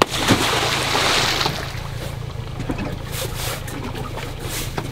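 A homemade stake-bed fish attractor, a cinder block with red PVC pipes, splashing into the lake after being thrown overboard: a sharp hit, then a second and a half of splashing water. A steady low hum from the boat runs underneath.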